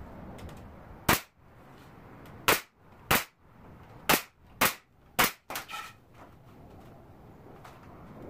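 Pneumatic nailer on an air hose firing nails into a wooden window frame: six sharp shots, irregularly spaced over about four seconds, with a fainter clatter just after the last one.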